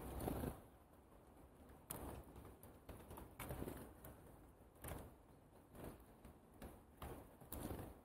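Small bird rustling and pecking among sunflower seeds and husks on a wooden feeder tray close to the microphone. It makes irregular scratchy rustles and taps, about eight in all, with the loudest right at the start.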